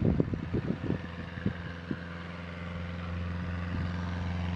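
The 150 hp four-cylinder engine and propeller of a 1969 American Champion 7GCAA Citabria running steadily, growing louder from about halfway through as the plane powers up and rolls for takeoff. Several low thumps in the first second and a half.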